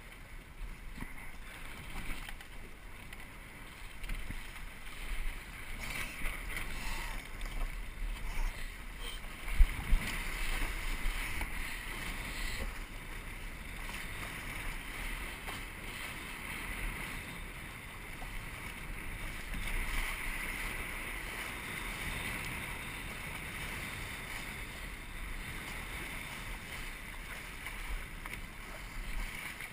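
Water rushing and hissing past the hull of a Musto Skiff dinghy sailing at speed, with wind buffeting the microphone in an uneven low rumble. A single sharp knock about ten seconds in is the loudest moment.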